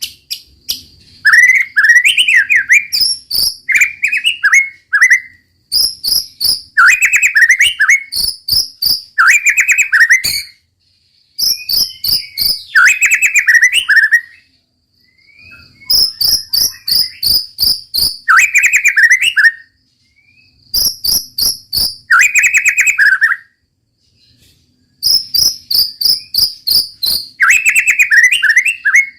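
White-rumped shama singing loud bouts of rapid-fire, sharp repeated notes mixed with warbled phrases, with short pauses between bouts.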